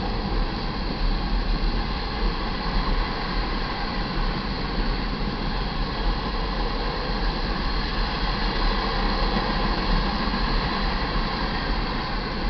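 Loaded iron ore cars of a freight train rolling past, a steady noise of steel wheels on rail.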